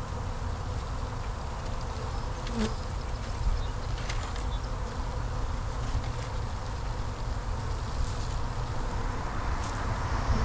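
Large mass of Italian honey bees buzzing steadily, stirred up by being shaken out of their package into the hive, with a few faint clicks.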